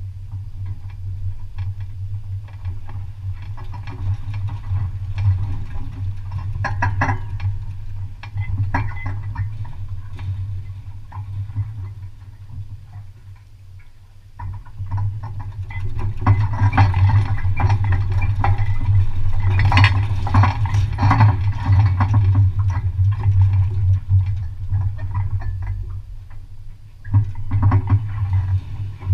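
Lawn-care trailer towed behind a pickup on the road: a steady low rumble with light rattling and clicking of the trailer and its loose equipment. It quietens for a few seconds around the middle, then is louder again for most of the second half.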